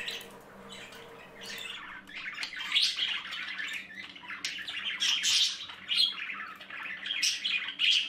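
Pet budgerigars chattering: a run of short, irregular high chirps and calls, busier from about two seconds in.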